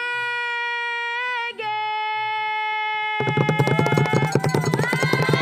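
Live music: a long held note that steps down in pitch about a second and a half in, then a fast drum roll from a percussion group entering about three seconds in, with voices starting to sing over it near the end.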